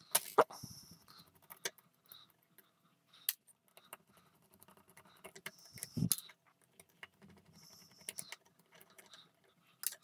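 Small screwdriver tip clicking and scraping against the thin metal shield of a circuit board as the shield is pried off. Scattered light taps, with a louder knock about six seconds in.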